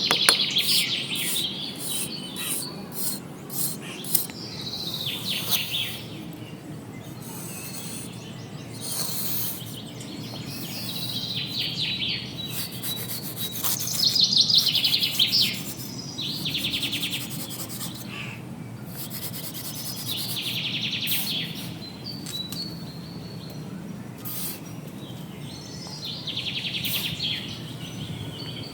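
Birds chirping in short rapid trills that come back every few seconds, over a steady low rubbing noise.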